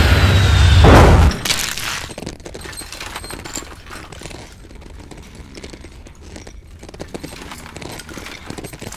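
Cartoon sound effects. A loud, deep rumbling hit cuts off about a second in, then a long run of quick, irregular clicks and crackles follows at a lower level.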